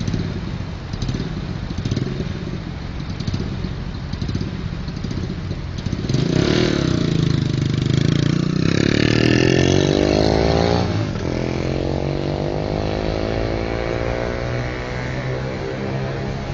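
Road traffic noise, with a motor vehicle passing close by in the middle: its engine grows louder and rises in pitch, then drops away, over about five seconds.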